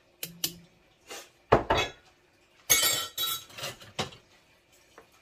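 A metal spoon and dishes clinking and knocking against each other and the rim of a cooking pot as a seasoning mix is added: a run of separate knocks and clinks, with a dull heavy knock about a second and a half in and a bright cluster of clinks near three seconds.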